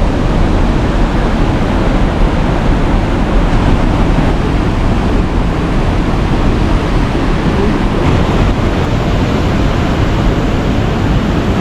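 Steady loud rush of a fast-flowing mountain river.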